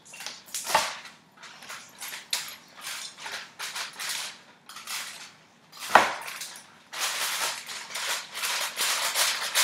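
Kitchen knife scoring deep cuts into the skin and flesh of a large whole fish on aluminium foil: repeated short scraping and crackling cuts, with two sharp knocks, about a second in and about six seconds in, and a denser stretch of sawing near the end.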